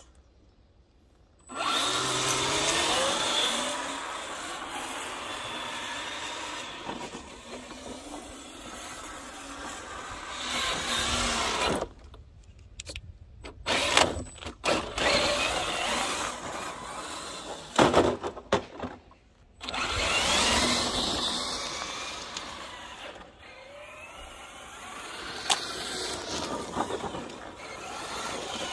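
RGT EX86190 LC76 1/10-scale RC crawler driving over gravel: its 550 electric motor and two-speed gearbox whine, rising and falling with the throttle, over the crunch of its tyres on the stones. The sound cuts out abruptly for a moment about twelve seconds in and again around eighteen seconds.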